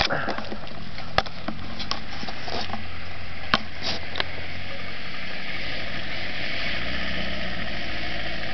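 Land Rover 4x4's engine running steadily at low revs as it crawls up a muddy slope, with a couple of sharp clicks, about a second in and again a couple of seconds later.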